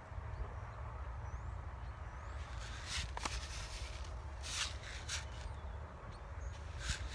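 Short rustles and scrapes of hands handling a paper seed packet and working soil while sowing seeds, over a steady low rumble.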